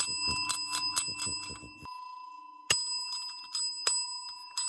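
A chrome desk service bell is struck over and over by a dog's paw, giving bright dings. There is a quick run of about four dings a second, a short pause near the middle, then a few more dings spaced further apart.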